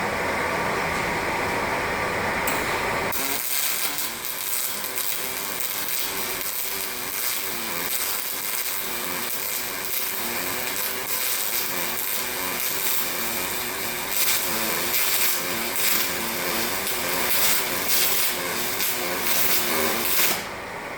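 MIG welding arc on aluminium under pure argon: a steady crackling hiss that starts about three seconds in and stops shortly before the end. A duller steady noise comes before it.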